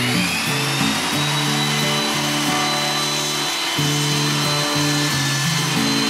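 Table saw running and ripping the edge of a board: its motor whine rises over the first second as the blade comes up to speed, then holds steady through the cut. Background music with a steady bassline plays underneath.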